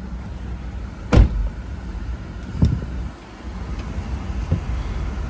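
Range Rover Sport engine idling, a steady low rumble heard from inside the cabin. A sharp thump comes about a second in, and a softer knock follows about a second and a half later.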